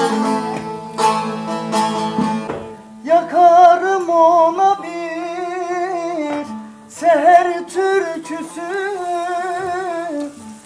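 Bağlama (saz) played with plucked notes, then a man starts singing a Turkish folk song over it, about three seconds in, in two long wavering phrases with the saz accompanying.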